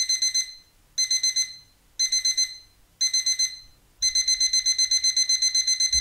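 Digital alarm clock beeping: groups of four quick high beeps once a second, then from about four seconds in a fast unbroken run of beeps.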